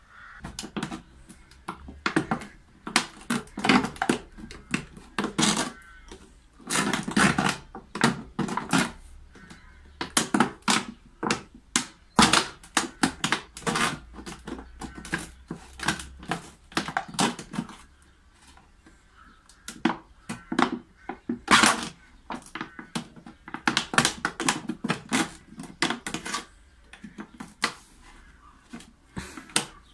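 Thin plastic water jug crackling and crinkling in the hands as holes are pierced into its sides, in quick irregular snaps with a short lull a little past the middle.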